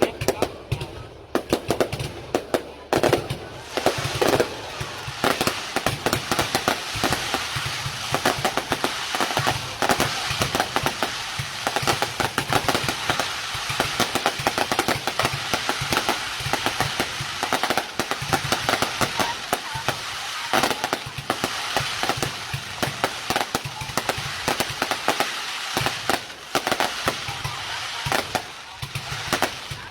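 Fireworks display: a dense, continuous barrage of bangs and crackling, many reports a second, with louder bangs standing out now and then.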